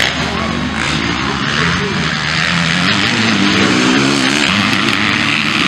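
Motocross dirt bike engines revving hard during a race, their pitch rising and falling as the riders open and close the throttle.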